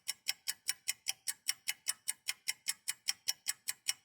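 Rapid, even ticking, about five crisp ticks a second, like a fast clock or timer.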